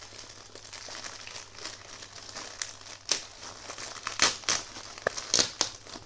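White plastic courier mailer bag crinkling and rustling as it is pulled open by hand, with sharper crackles about three seconds in and again from four seconds on.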